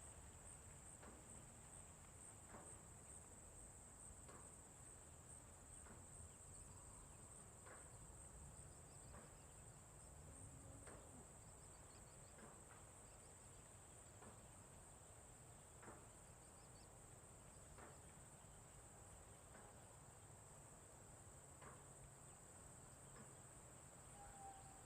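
Faint rural ambience: a steady, high-pitched insect chorus over a low rumble, with scattered short faint ticks every second or two.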